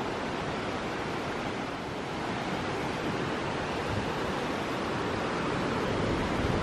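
Steady rush of water: the swollen Taughannock Creek pouring over rocks below Taughannock Falls.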